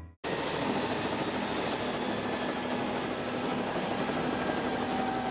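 Helicopter running steadily, with a high turbine whine that slowly falls in pitch. It sets in abruptly a fraction of a second in, after a brief silence.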